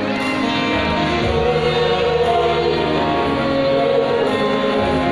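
Mixed choir singing, holding sustained chords.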